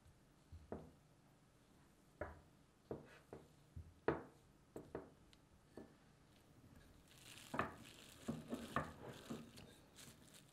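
Spatula pressing and scraping cocoa cookie dough against a glass mixing bowl, a series of soft knocks and squishes. About seven seconds in, plastic wrap rustles and crinkles.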